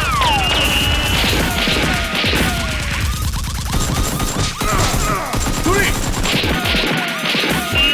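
Dubbed-in gunfire sound effects: rapid volleys of shots mixed with falling, whistling whines like ricochets, over background music.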